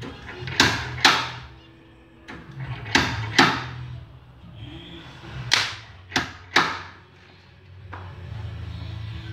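Slide hammer dent puller fixed to a dent in a car's sheet-metal panel, its weight slammed against the stop in about seven sharp knocks, mostly in quick pairs, pulling the dent out.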